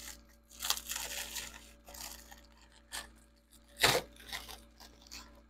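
Plastic courier bag crinkling and tearing as it is pulled open by hand, in short irregular rips and crackles, the sharpest about four seconds in.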